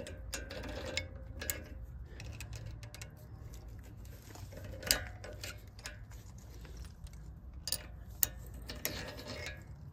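Light metal clicks and scrapes of steel caliper pins being worked through the new brake pads in a Chevy Silverado front brake caliper, with a sharper click about five seconds in and two more near eight seconds.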